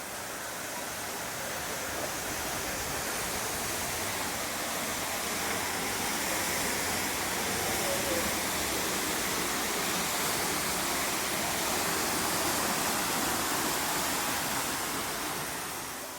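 Steady rushing roar of a waterfall. It fades out near the end.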